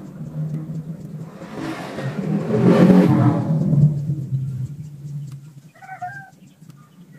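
A motor vehicle passing by, its engine sound swelling to a peak and then fading, followed by a short high call near the end.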